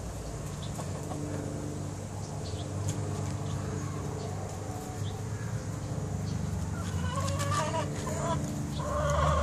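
Backyard chickens clucking, with a louder run of calls about seven seconds in and again near the end.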